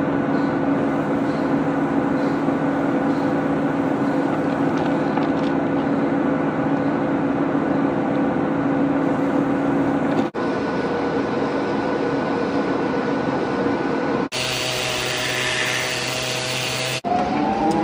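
Steady machine hum in a workshop, broken by edits into sections. From about two-thirds of the way in, a handheld power tool runs with a hiss and a steady whine, and near the end a motor speeds up with its whine rising in pitch.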